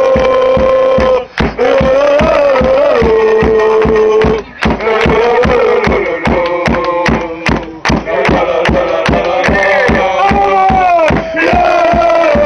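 A group of male football supporters singing a chant together, holding long notes over a steady beat of about three strokes a second, with a few brief breaks.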